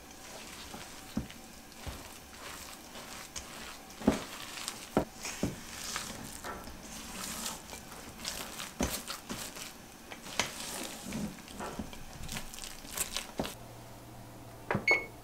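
Spatula stirring grated carrots into thick cake batter in a stainless-steel mixing bowl: wet scraping and squelching with irregular sharp knocks of the spatula against the bowl. Near the end, a single short electronic beep from an oven's control panel.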